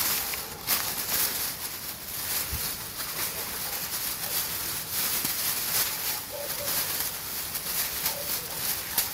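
Thin plastic bag crinkling and rustling unevenly as hands knead damp groundbait mixed with fish meal inside it.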